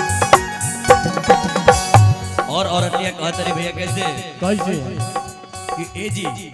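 Live Bhojpuri stage-band music: electronic keyboard over a tabla-style drum beat. After about two and a half seconds the heavy drum hits drop back and a wavering, ornamented melody line takes over.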